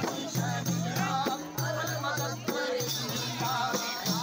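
Procession music of frame drums (dafs) and jingling metal rattles beating a fast, steady rhythm of about four strikes a second, with voices singing over it.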